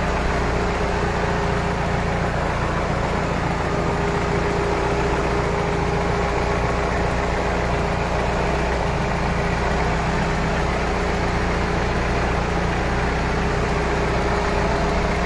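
Toyota 3S-GTE turbocharged four-cylinder engine idling steadily, running on a base calibration of a newly fitted MegaSquirt 3 engine management system.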